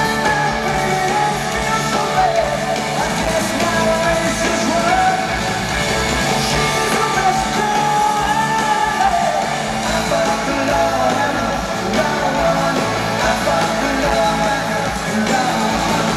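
Live rock band playing in an arena, heard from the stands: electric guitars, drums and a sung vocal.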